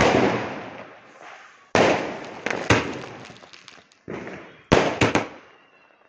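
Aerial fireworks bursting overhead: about eight sharp bangs in uneven succession, several close together near the end, each fading away over a second or so.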